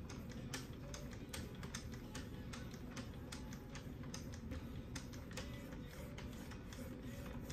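Wicked Edge guided knife sharpener in use: the hand-held sharpening arms stroked along the clamped blade, with irregular light clicks and taps, several a second, over a steady low hum.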